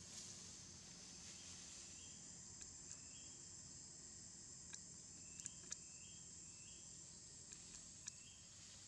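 Quiet forest ambience: a steady high-pitched insect drone, with short rising chirps repeated every second or so and a few faint ticks.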